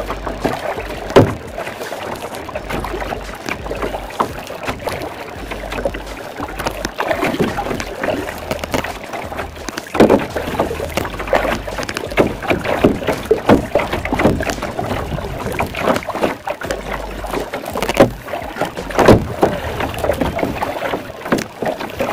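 A kayak moving through water: irregular paddle splashes and water slapping against the hull, with wind rumbling on the microphone.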